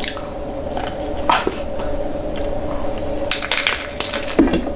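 Close-up chewing and crunching of a hard-shell taco, with a few crisp crunches, most of them bunched together between about three and four seconds in, over a steady hum.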